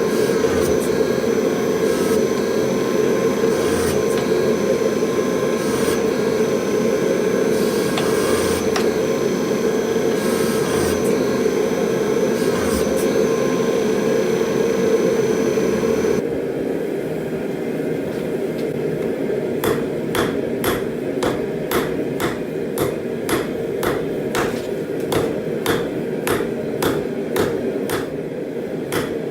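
Steady roar of a gas forge burner; a little past halfway the higher hiss drops away and regular hammer blows on hot steel at the anvil begin, about two sharp strikes a second, as the damascus chisel blanks are forged.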